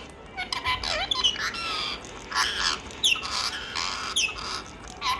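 Pet parrot squawking in a string of short calls, some noisy and some quick falling whistles.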